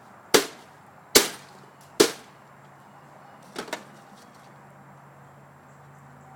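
Hard blows struck on an old laser printer to knock its stuck toner drum free: three loud, sharp hits about a second apart, then two lighter knocks in quick succession.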